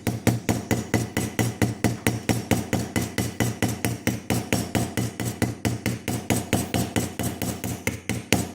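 Small hammer tapping quickly and evenly, about five light strikes a second, each with a short ring: peening the pins of a folding pocket knife.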